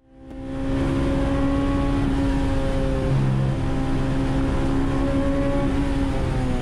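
Honda S2000's four-cylinder engine running under load at a steady pitch over a constant hiss of road and wind noise, fading in over the first second and sagging slightly in pitch near the end.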